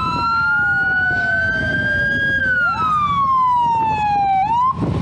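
Police motorcycle escort sirens wailing in slow rising and falling sweeps, two tones crossing each other, with a quick yelp near the end. A low rumble lies beneath.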